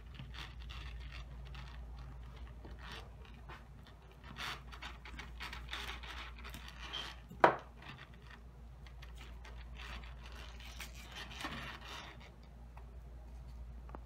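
Hands pulling the sticky, fibrous bulbs of flesh out of a halved jackfruit on a wooden cutting board: irregular soft scraping and rubbing, with one sharp knock about seven seconds in.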